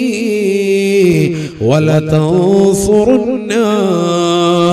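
A man chanting a Quranic verse in Arabic in the melodic tajwid style, holding long drawn-out notes on the vowels, with a short break for breath about a second and a half in before the chant resumes.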